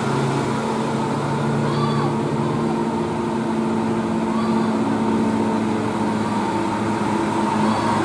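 Tour bus engine and the cars following it running steadily as they climb toward and approach on a two-lane road, a continuous engine hum with road noise.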